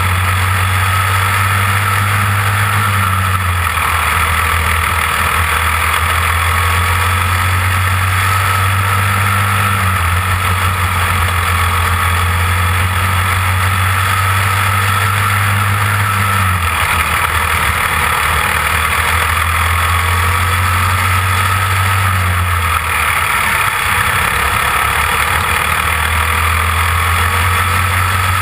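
Caged dirt-track kart's engine running hard, heard from on board. Its note swells and eases in a repeating cycle every several seconds as it works around the oval, over a steady rush of wind on the microphone.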